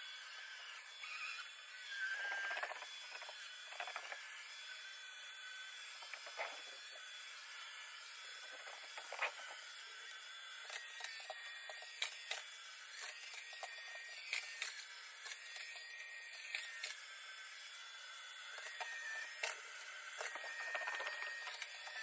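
iRobot Roomba J7+ robot vacuum running with a steady whir, rattling and clicking as it sweeps up scattered cereal and rice, the clicks thickest about halfway through.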